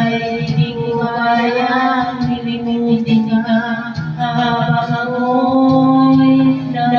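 A woman singing karaoke into a wired microphone, her voice amplified through a portable tower speaker over a backing track, holding long notes.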